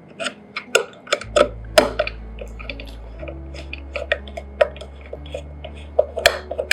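Screwdriver driving the mounting screws of a sliding glass door handle: a run of small, irregular metal clicks and taps. A low hum runs underneath from about a second in.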